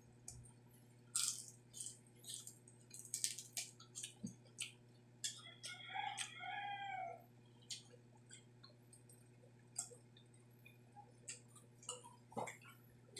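Crunchy chewing of deep-fried pork intestine close to the microphone, a run of sharp crackles. About halfway through, a rooster crows once for around two seconds.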